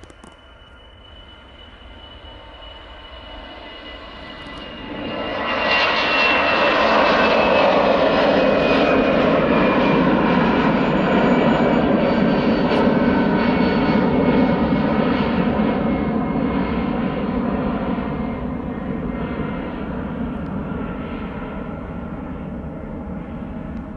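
Airliner passing close by. A high engine whine is heard first, then the engine noise swells suddenly about five seconds in, stays loud for several seconds, and slowly fades as the whine falls gently in pitch.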